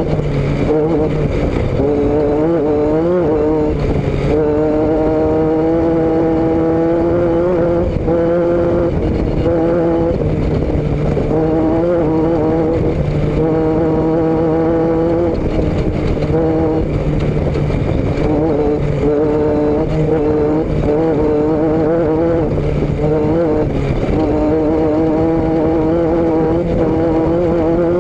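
Vehicle engine running at a fairly steady cruising speed, loud and close, its pitch wavering slightly a few times, over a constant rushing noise.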